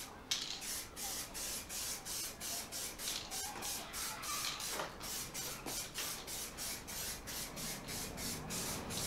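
Aerosol can of etch primer spraying, hissing in rapid short pulses about four times a second.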